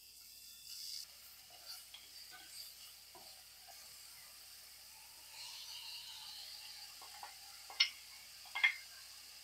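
Chopped food sizzling in hot oil in a frying pan while a wooden spoon stirs it. Near the end, two sharp knocks come as more food is tipped in from a plastic container.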